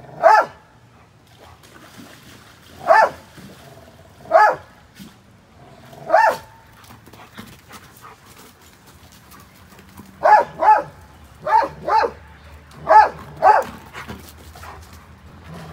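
German Shepherd barking: about ten short barks, single ones a few seconds apart at first, then three quick pairs in the second half.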